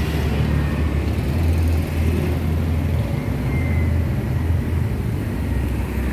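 Steady low rumble of running motor vehicles in street traffic, under a general outdoor noise.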